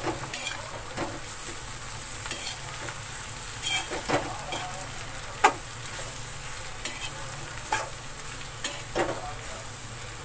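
Sliced bitter gourd and onions sizzling in hot oil in a metal kadhai, stirred with a spatula that scrapes and clacks against the pan every second or two; the loudest clack comes about halfway through.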